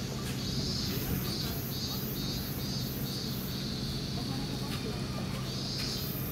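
Insect calling: a shrill, high chirping that alternates between a continuous buzz and evenly spaced short pulses, about two and a half a second, over a steady low hum.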